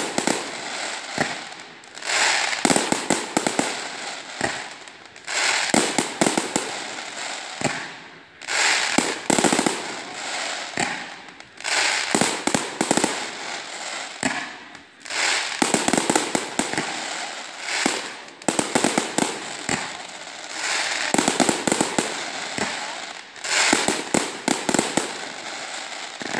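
Fireworks crackling and popping in dense rapid clusters, a fresh loud burst of crackle every two to three seconds.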